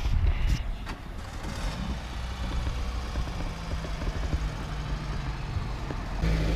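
A motor vehicle engine idling steadily as a low hum, getting louder near the end. Camera handling knocks come right at the start.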